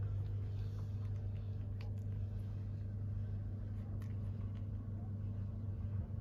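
A steady low hum with a few faint, short ticks scattered through it.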